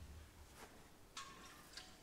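Faint drip-like plinks, a few short drops with a brief ringing tone about a second and a second and three-quarters in, after a low dull thud at the start.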